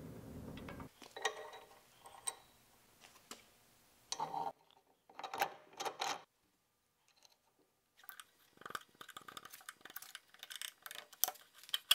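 Small steel bolts, washers and tools clinking and clicking as they are handled and fitted while a contact wheel attachment is assembled onto a steel fork. A short low hum comes in the first second, and the clicking turns quick and dense over the last few seconds.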